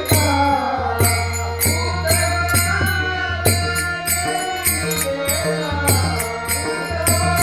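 A male singer holding long, ornamented notes in a Varkari devotional bhajan, over a steady beat of sharp percussion strokes about twice a second.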